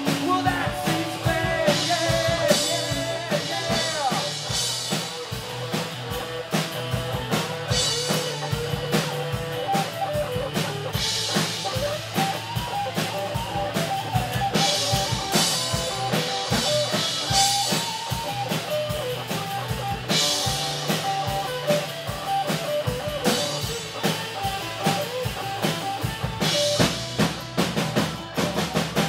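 Live rock band playing: a drum kit keeps a steady beat under electric and acoustic guitars.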